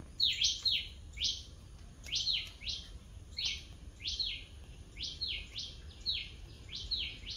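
A bird calling in a run of short, sharp chirps, each sliding quickly down in pitch, many of them in quick pairs, about two a second.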